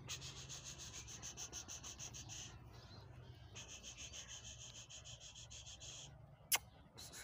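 Bully kutta dog panting rapidly and evenly, in two runs with a short pause between them. A single sharp click comes near the end.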